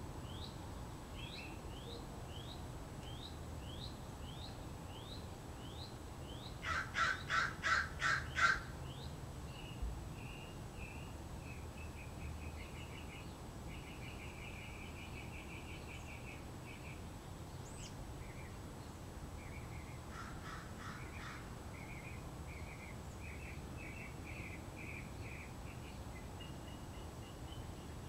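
Birds calling: a songbird repeats a short whistled note about twice a second, then a crow caws six times in quick succession, the loudest sound. Trilling, chattering songbird calls follow, with a few fainter caws about twenty seconds in.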